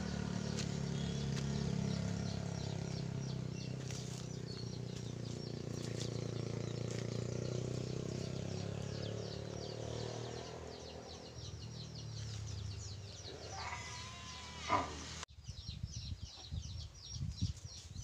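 Outdoor rural ambience: small birds chirping over a steady low hum. The hum breaks off abruptly near the end, leaving the chirping over a quieter background.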